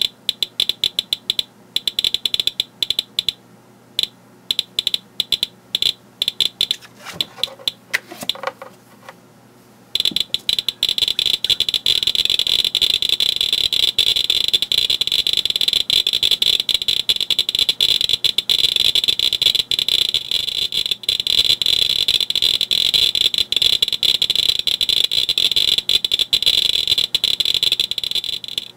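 Geiger counter with a pancake probe clicking fast and irregularly, several clicks a second, as it counts beta and gamma radiation from a thoriated camera lens, which likely contains thorium oxide. There is a brief handling noise around seven to nine seconds in as the lens and probe are repositioned. From about ten seconds in, the clicking is denser and almost continuous.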